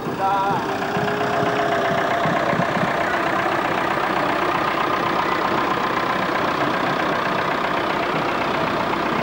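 Farm tractor engine running steadily close by as it tows a loaded float trailer.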